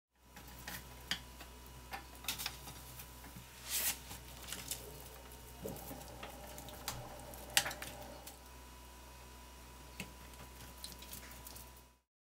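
Pork pieces grilling on a perforated metal grill tray, with faint crackling and scattered small pops and clicks, among them chopsticks knocking on the tray as the meat is turned. A steady low hum runs under it.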